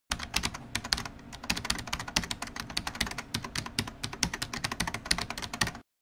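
Fast typing on a computer keyboard: quick, uneven keystroke clicks that stop abruptly near the end.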